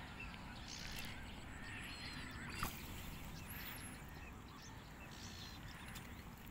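Faint bird calls and chirps over a low, steady outdoor background, with a single short click about two and a half seconds in.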